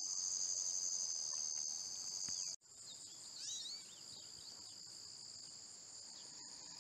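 Steady high-pitched chorus of insects, crickets or similar, which drops in level after a short break about two and a half seconds in. A few short bird chirps come about a second later.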